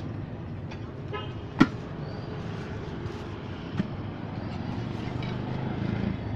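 Roadside street ambience with steady traffic hum. A brief horn toot comes just after a second in, then a sharp loud clack, and a smaller knock follows about two seconds later.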